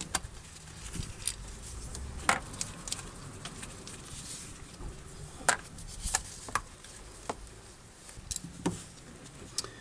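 Scattered sharp clicks and light taps of small metal parts and hand tools being handled among the ignition coils: the coil hold-down bolts and a ratchet.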